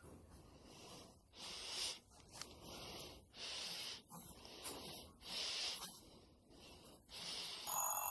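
Short raspy hisses about once a second, then an electronic timer alarm starts beeping loudly near the end, marking the end of a 10-second timed round.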